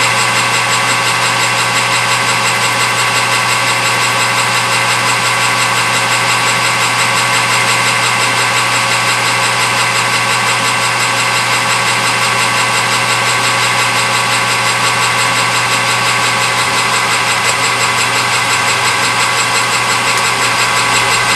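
Metal lathe running steadily with no cut being taken: an even motor hum with a steady whine from the drive.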